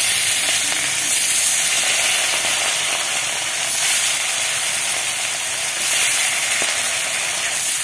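Fish pieces frying in hot oil in a kadai, a loud steady sizzle.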